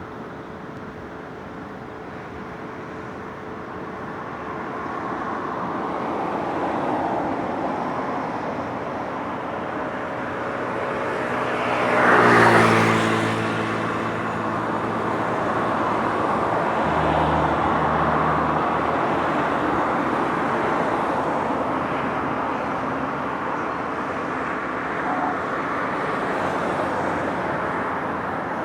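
Road traffic passing steadily, a wash of tyre and engine noise rising and falling. About twelve seconds in, one vehicle passes close, the loudest moment, its engine note dropping in pitch as it goes by.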